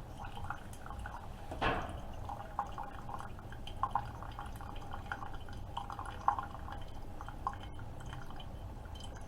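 Keurig K-Supreme Plus single-serve coffee maker mid-brew: coffee dripping and splashing into the cup in irregular little drops over a steady low hum from the machine, with a couple of brief louder ticks.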